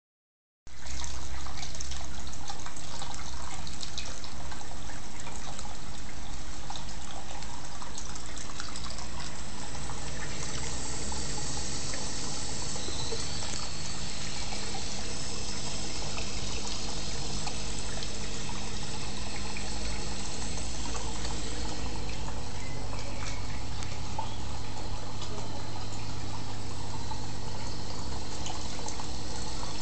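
Water splashing and trickling steadily into a reef aquarium sump from the drain pipe, over the low steady hum of the Bubble King Mini 200 protein skimmer's pump. It starts about a second in.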